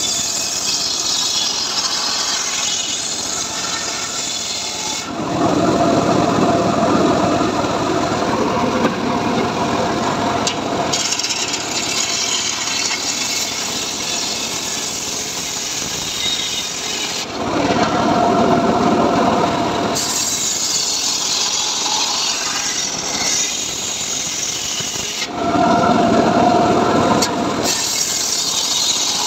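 Homemade table circular saw ripping rain tree (trembesi) timber lengthwise: a continuous hissing rasp of the blade through the wood. Three times the cut turns louder and lower with a steady hum in it, starting and stopping abruptly.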